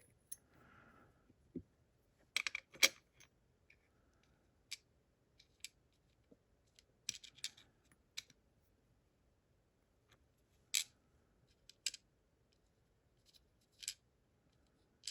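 Scattered light clicks and ticks from small metal lock pins and parts being handled, a few in quick pairs.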